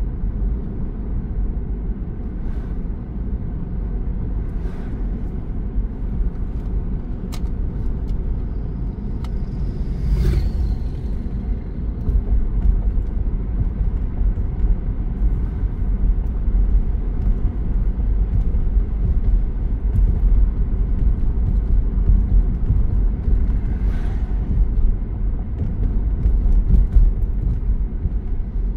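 A car driving on a road: a steady low rumble of tyres and engine, with a few light clicks and a short high squeak and knock about ten seconds in.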